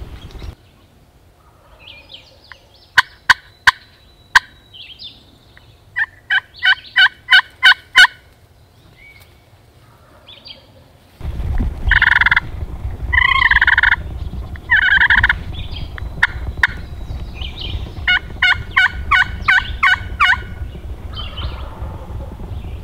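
Wild turkey gobbling, each gobble a rapid rattling run of about eight notes: a loud one about six seconds in and a more distant one near the end. Between them, a hunter's slate friction call yelps in several loud strokes.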